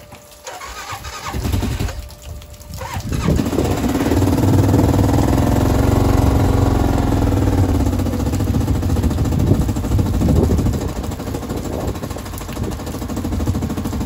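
A 2012 CFMoto Terralander 500 ATV engine cold-starting: the starter cranks for a couple of seconds, the engine catches about three seconds in, and it then keeps running at a fast cold idle, its pitch rising a little and then settling.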